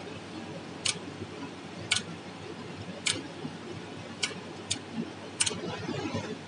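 Sharp metallic clicks about once a second, six in all, from the forming mechanism of a wire chain-making machine as it cycles slowly on freshly threaded wire.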